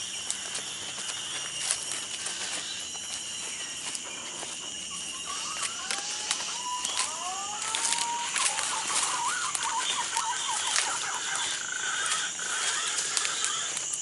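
Footsteps crunching and rustling through dry leaf litter and undergrowth, with sharp snaps and clicks of twigs, over a steady high insect drone. A few short rising whistled calls come about six to eight seconds in.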